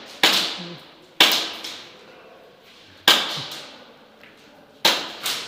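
Airsoft guns firing single shots: five sharp cracks at uneven intervals, two of them close together near the end, each echoing away in a large indoor space.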